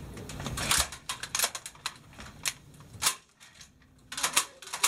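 M240 machine gun being handled during reassembly, giving a string of irregular sharp clicks and clacks, with a quieter gap a little past the middle.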